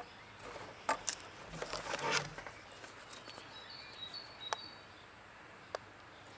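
Quiet outdoor background with scattered light clicks and taps, a cluster of them in the first two seconds, and a few brief high chirps around the middle.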